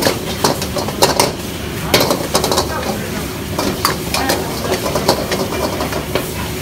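A steel ladle scrapes and clanks against a wok as Hakka noodles are stir-fried and tossed, with many sharp irregular knocks. The noodles sizzle, and a commercial gas wok burner rushes steadily underneath.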